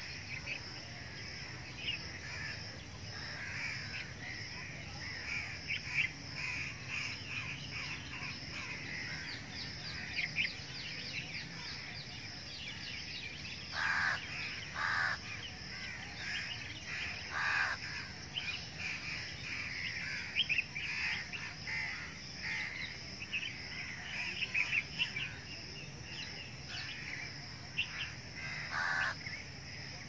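Birds chirping steadily over a steady high-pitched drone, with a crow cawing four times: twice in quick succession midway, once a few seconds later, and once near the end.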